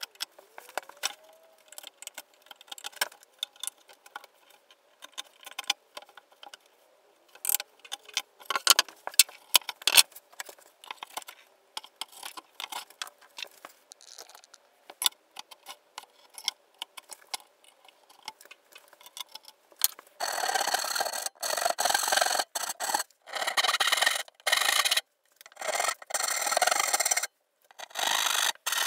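Clicks and small knocks of wood and an F-clamp being handled and tightened. About 20 s in, a backed hand saw starts cutting wood in steady, even strokes, a little under one a second.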